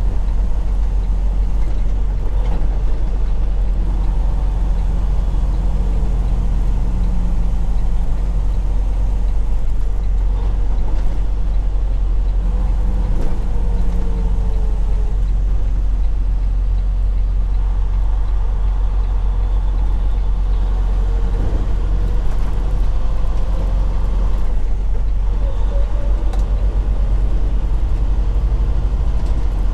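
Freightliner Cascadia semi-truck's engine and road noise heard inside the cab while driving: a steady low drone.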